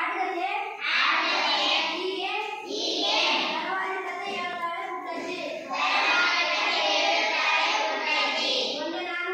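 Children singing, in long phrases with short breaks between them.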